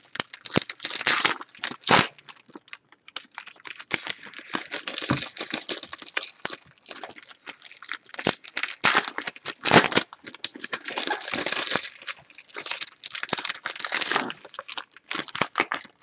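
Trading-card pack wrappers being torn open and crinkled while cards are handled and stacked: a long run of irregular crisp rustles and sharp snaps.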